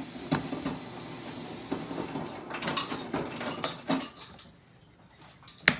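Small clicks and knocks from a plastic coffee-creamer bottle being opened and handled over a mug, then a single sharp click near the end.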